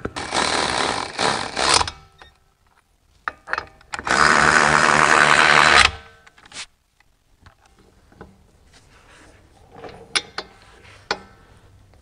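Cordless electric ratchet running in new brake caliper bolts, in two bursts of about two seconds each, one at the start and one near the middle, followed by a few faint clicks.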